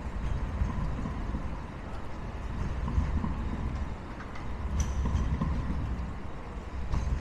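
A light rail tram running past with a heavy, steady low rumble, over an even hiss of rain.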